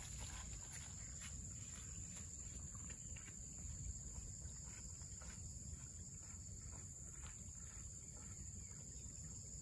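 Faint, steady high-pitched drone of insects, with soft footsteps on a dirt trail.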